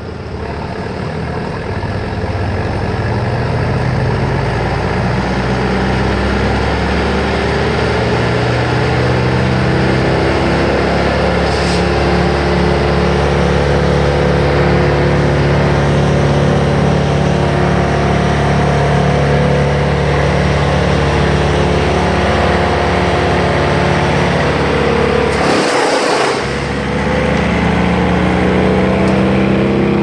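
An engine running steadily, with a sharp noise and a brief drop in the engine sound near the end.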